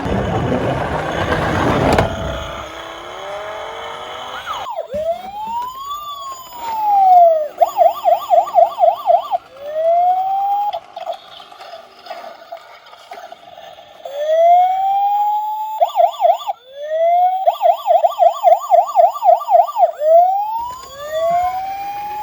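Electronic police siren sound, most likely from a toy police car: rising and falling wails broken twice by a fast yelping warble. A burst of rattling noise comes first, for about two seconds before the siren starts.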